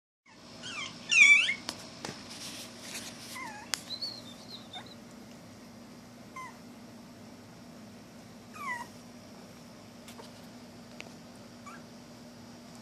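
Toy poodle puppies, five weeks old, giving short high-pitched whines and yelps that bend down in pitch. The loudest cluster comes about a second in, and single fainter whimpers follow every few seconds. A couple of sharp clicks come early on, over a faint steady hum.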